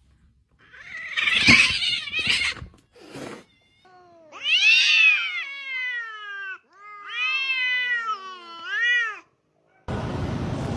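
Domestic cat yowling: two long drawn-out yowls whose pitch bends up and down, after a short rough, noisy sound about a second in.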